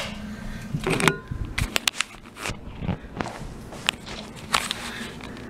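Camera handling and footsteps as the camera is picked up and carried across a room: an irregular run of clicks, knocks and rustles, with the sharpest knocks about a second in and again near the end.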